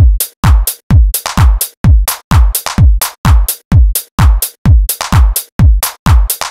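Short electronic dance track with a kick drum hitting about twice a second, each kick falling in pitch, and sharper percussion hits between the kicks. It starts suddenly. This is the rough mix in mono, before equalisation.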